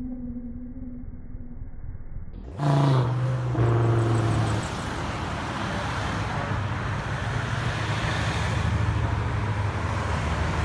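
A muffled steady hum, then about two and a half seconds in a car engine revs loudly, followed by the steady engine and tyre noise of a line of cars driving past close by.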